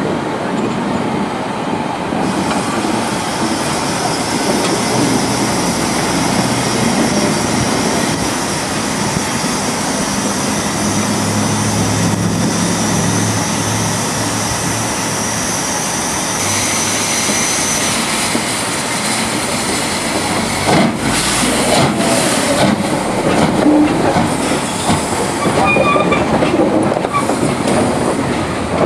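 LMS Stanier Class 5 4-6-0 steam locomotive moving slowly along the track, with wheels running over the rails and a steady high hiss of steam through the first half. A few sharp clanks come about two thirds of the way through.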